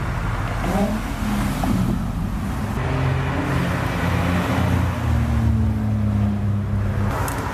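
Car engines running as cars drive slowly past, with a deep steady engine note through the middle that drops away near the end.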